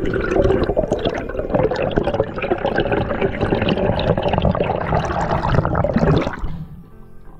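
Seawater rushing and bubbling against an underwater camera as it moves, a dense crackling wash that drops away sharply about six seconds in as the camera nears the surface.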